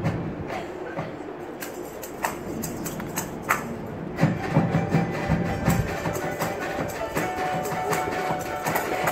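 Live music from a women's university tuna: frequent sharp percussion hits over sustained musical tones, with a fuller, louder passage from about four seconds in.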